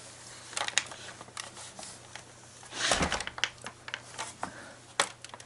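Handling noises: scattered clicks and knocks, with a short rustle about three seconds in, over a low steady hum.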